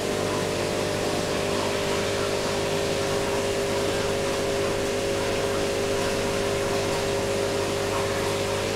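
Aquarium pumps running with a steady hum and an even hiss of bubbling water.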